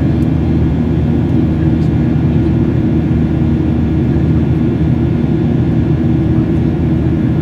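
Cabin noise of a Boeing 737-800 in its climb: the CFM56 turbofan engines' steady drone, with several fixed hums over the rush of air past the fuselage.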